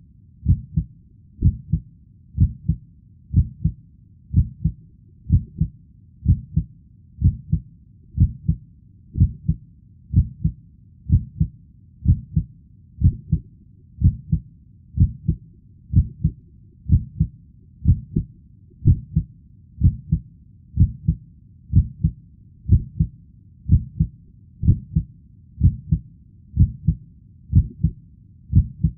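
Heartbeat sound laid under the slideshow: low, dull thumps repeating at an even, steady pace of roughly one beat a second.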